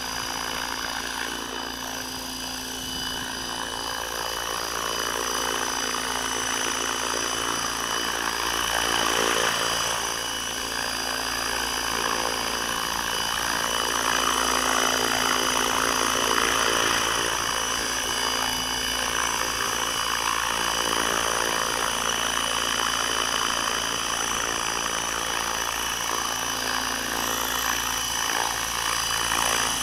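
HK600GT 600-size electric RC helicopter hovering, with its 1200KV motor and rotors running as a steady high whine. It swells a little at times as the pilot works the throttle and pitch.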